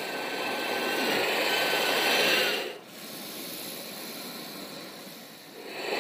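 A man breathing deeply close to the microphone. One long, loud breath swells for over two seconds with a faint nasal whistle and stops abruptly, a quieter breath follows, and another loud breath begins near the end.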